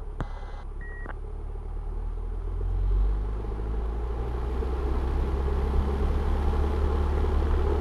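Cessna 172R's four-cylinder Lycoming engine at full power on the takeoff roll, growing louder over the first three seconds and then holding steady, heard from inside the cockpit. A click and a short beep sound about a second in.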